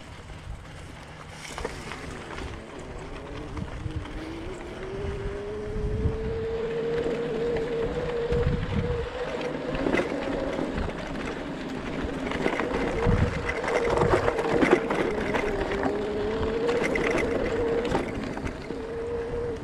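Electric bike motor whining in one steady tone that climbs in pitch a few seconds in and then holds, over the rumble of tyres on a rough dirt trail, with scattered knocks and rattles from bumps and wind on the microphone.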